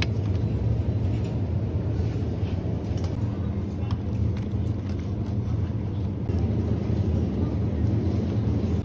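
Steady low hum of a supermarket's refrigerated display cases, with a few faint clicks.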